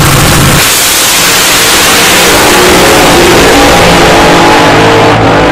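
Nostalgia top fuel dragster's nitromethane-burning engine at full throttle, launching off the start line about half a second in. It is a very loud, harsh blast that carries on as the car pulls away down the strip.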